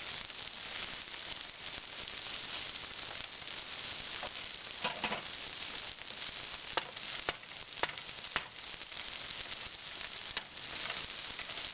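Diced potatoes, Spam and vegetables frying in a non-stick skillet with a steady sizzle, and a few sharp clicks between about five and eight and a half seconds in.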